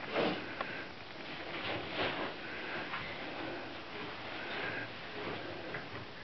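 Pony sniffing and blowing through its nostrils in short breathy puffs, two louder ones about two seconds apart, over faint rustling.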